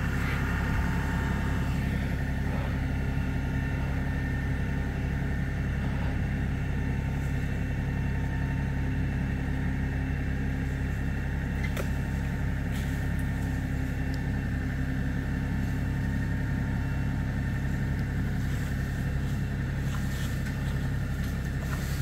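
New Holland Workmaster 40 compact tractor's diesel engine running steadily, heard from a distance.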